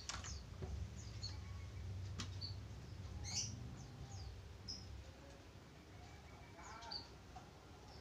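Short, high-pitched bird chirps, about a dozen scattered through, over a low handling rumble that fades out about halfway, with a couple of sharp knocks near the start and about two seconds in.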